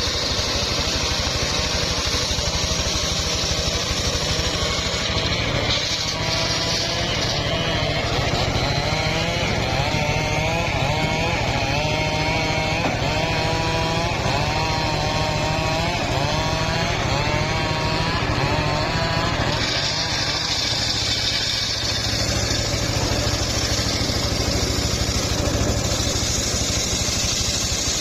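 Homemade engine-driven circular sawmill running steadily. A high whine at the start and end gives way in the middle to a wavering tone, which fits the blade working through a log of old, fairly hard mahogany.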